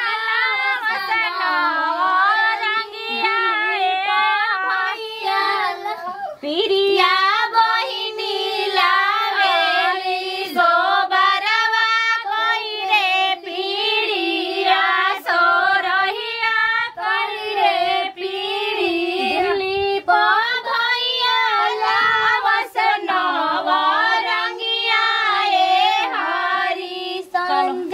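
Several women singing a Bhojpuri folk song together on one melody, with long, wavering drawn-out notes and short pauses for breath.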